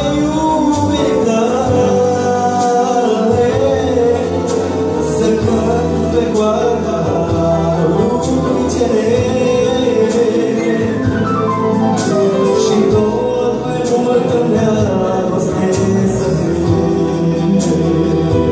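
A man singing a gospel song into a microphone, accompanied by piano accordion and electronic keyboard through a PA system. A quick run of falling notes comes about twelve seconds in.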